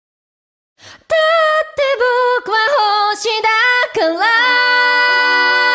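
Female solo pop vocal sung a cappella: a short breath, then a melodic line in separate phrases. About four seconds in, sustained backing chords come in under the held voice.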